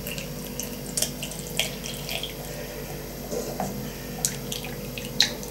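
Water poured from an enamel kettle into a small teapot, a steady trickle, with a few light clicks along the way.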